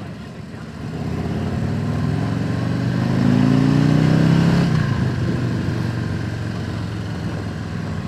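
Harley-Davidson V-twin motorcycle engine accelerating, its note rising steadily for a few seconds and loudest about four and a half seconds in, then falling back. Heard through a helmet microphone with wind buffeting.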